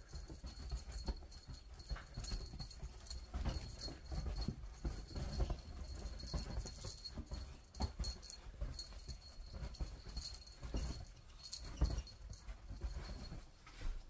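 A cat pouncing and scrambling on a bed after a feather wand toy: irregular soft thumps and rustling of the bedspread.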